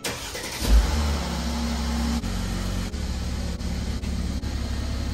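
Mercedes-Benz GL450's V8 engine starting: it cranks and catches with a loud burst under a second in, runs at a higher fast idle, then settles to a steady idle about two seconds in.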